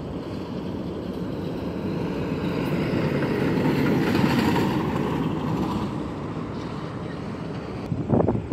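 A truck passing by on the street: its engine and tyre noise swells to a peak about halfway through and then fades. A few short, sharp bumps of sound come near the end.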